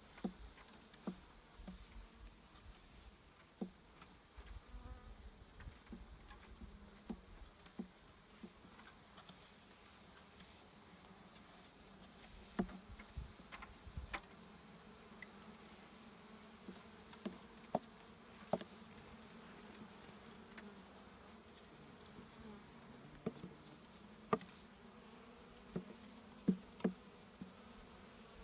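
A honey bee swarm buzzing with a steady low hum, with scattered sharp clicks and knocks throughout.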